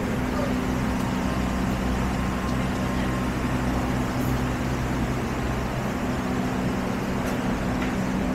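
Steady city street noise with a low mechanical hum, like a vehicle engine idling; the hum drops away briefly about two-thirds of the way through.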